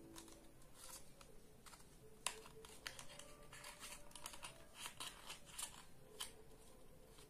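Faint rustling and creasing of paper being folded by hand, a scatter of small clicks and crinkles with one sharper tick about two seconds in.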